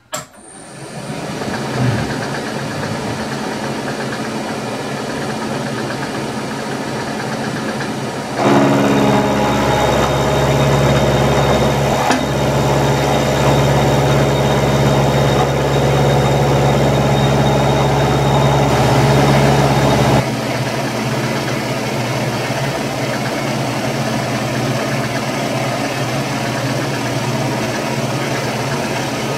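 Milling machine spindle starting up and running steadily. From about eight seconds in until about twenty seconds in, it is louder with a steady hum as the end mill takes a cut along the edge of the clamped metal plate, then it drops back to plain running.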